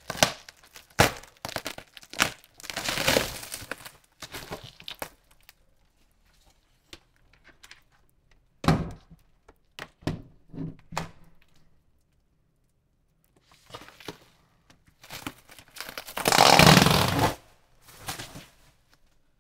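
Clear plastic stretch wrap being torn and peeled off a cardboard box, crinkling in irregular bursts of small crackles. A dull thump comes about nine seconds in, and the longest, loudest tear comes about sixteen seconds in.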